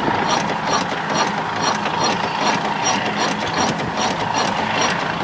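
Outboard motor's electric starter cranking slowly without the engine catching: a steady whine with a regular ticking about two to three times a second. The battery is too low, at about 12.3 volts, to turn it over fast enough to start.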